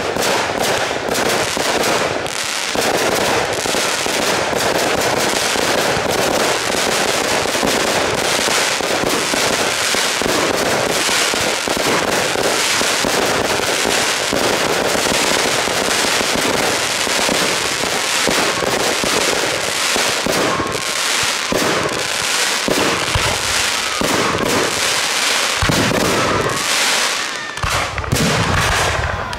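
Fireworks display: aerial shells launching and bursting in quick succession, a dense, continuous crackle of reports that thins out a little in the last few seconds.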